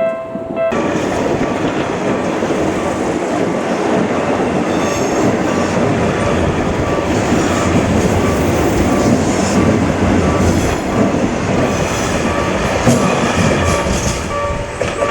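Seibu Railway Red Arrow limited express electric train passing close by at speed over a level crossing: a loud rush of wheels on rail that starts suddenly under a second in and eases near the end. The crossing's warning bell dings steadily underneath.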